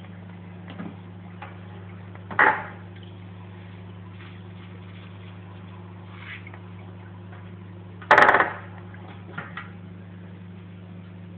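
Steady electric hum of an aquarium filter pump, broken by two loud sharp clicks, about two seconds in and again about eight seconds in, and a few fainter ticks.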